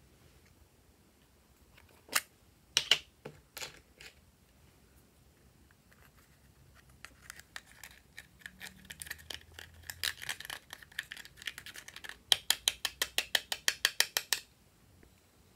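A few sharp plastic clicks, then a thin stick scratching pressed makeup powder out of a small plastic compact: a dry scraping rasp that ends in a run of quick strokes, about six a second.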